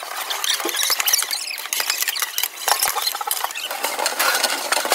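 Metal ladles stirring and scraping in large aluminium cooking pots, a fast, irregular run of clinks and scrapes.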